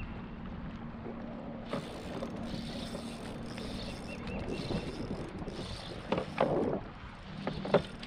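Fishing reel cranked during a fight with a hooked bass from a kayak, starting with a sudden swish of the hookset about two seconds in. A steady low hum runs underneath, and there are a few short, louder splashy bursts near the end.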